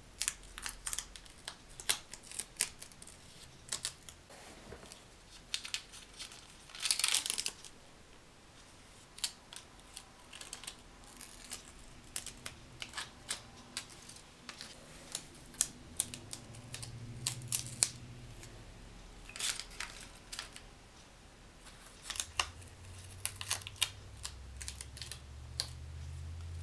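Scotch tape being peeled off a freshly airbrushed plastic model: a run of faint crackles and small ticks, with one longer rip about seven seconds in.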